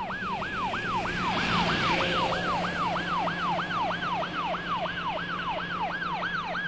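Police siren in a fast yelp, its pitch sweeping up and down about three times a second, over a steady low hum.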